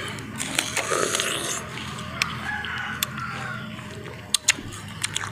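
Biting and chewing raw bilimbi (belimbing wuluh), with a few sharp crunchy clicks scattered through. A rooster crows in the background.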